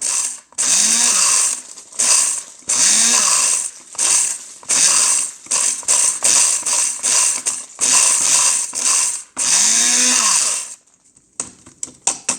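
Electric blender pulsed in about a dozen short bursts, its motor speeding up and winding down each time as it grinds dry ingredients into crumbs. It stops about eleven seconds in.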